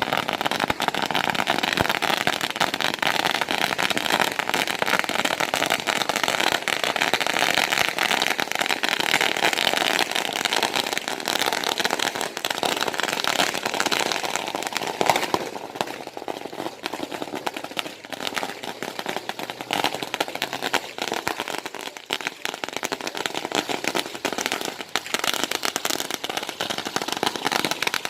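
Long strings of firecrackers going off in a continuous rapid crackle of countless small bangs, a little sparser in the middle stretch before thickening again.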